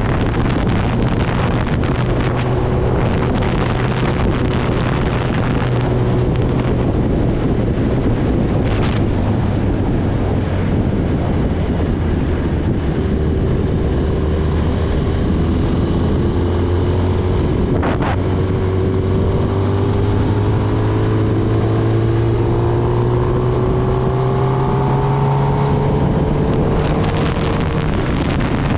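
Kawasaki Ninja ZX-10R's inline-four engine running under way, its pitch rising gradually through the second half as the bike picks up speed. Heavy wind noise buffets the onboard microphone, with two brief sharp clicks about 9 and 18 seconds in.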